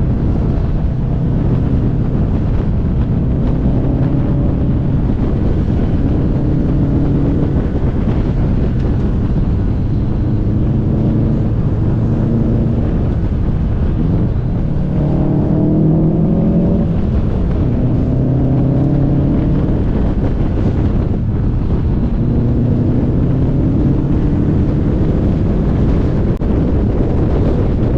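Car engine heard from on board on a winding road, its pitch climbing and dropping again and again as it accelerates and lets off. Steady wind and road noise on the microphone run underneath.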